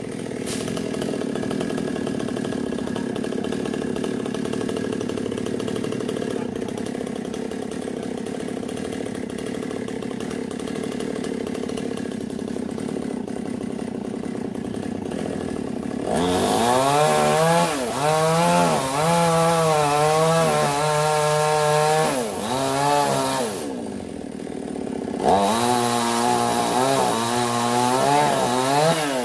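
Two-stroke chainsaw running at a steady idle, then revved hard about halfway through, its pitch wavering as it cuts into a sonokeling (Indian rosewood) trunk. It drops back briefly, then revs and cuts again near the end.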